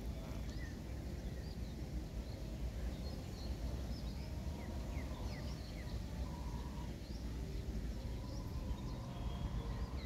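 Wind rumbling on the microphone, with faint, short bird chirps scattered high above it.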